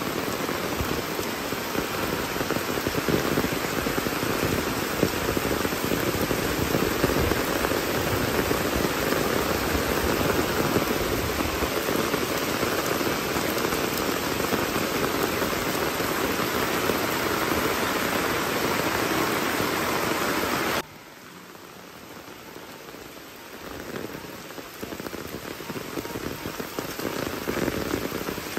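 Heavy rain falling steadily in a continuous dense hiss. About two-thirds of the way through it suddenly drops to a much softer rain sound, then builds back up over the next few seconds.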